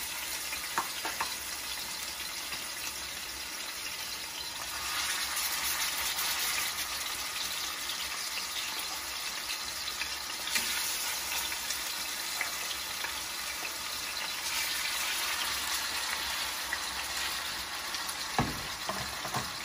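Chicken breasts frying in hot oil in a stainless steel skillet: a steady sizzle that swells louder at times. There are a few sharp clicks over it.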